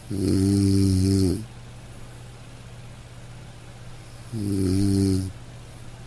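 A person snoring: two long, pitched snores about four seconds apart, the first at the start and the second about four seconds in, over a steady low hum.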